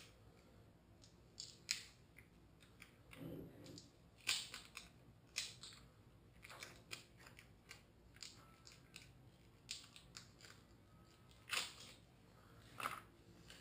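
Faint, scattered clicks and rustles of hands handling a tyre plug repair kit's tools: a sticky plug strip being threaded through the insertion needle.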